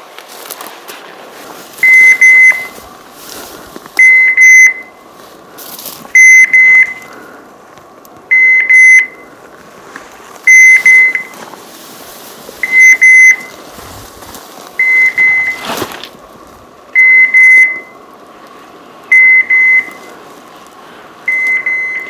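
Electronic beeper collar on a hunting dog sounding a high beep about every two seconds, ten beeps in all, each just under a second long. Faint brush and footstep noise can be heard between the beeps.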